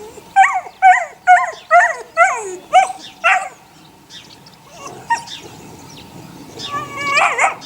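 Eight-week-old puppies yipping: a quick run of about seven short, high yips, each falling in pitch, then a longer whining cry near the end.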